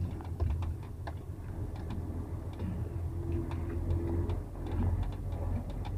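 Semi-truck cab interior on a rough gravel road: a steady low engine drone with scattered, irregular light clicks and rattles from the cab as it jolts over the broken surface.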